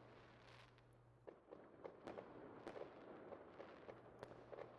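Near silence, with faint scattered pops and crackles from a distant fireworks ambience.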